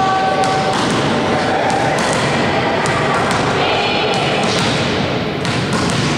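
Voices echoing in a gym hall, with repeated thuds of a volleyball bouncing on the court floor.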